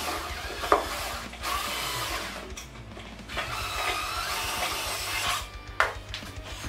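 Cordless drill-driver running in three bursts, the last about two seconds long, as it drives screws into a weight bench's backrest. A sharp click comes about a second in, and a sharp knock near the end.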